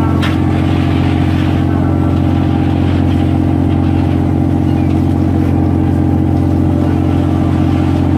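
The fishing boat's engine and deck machinery running with a steady, unchanging low drone.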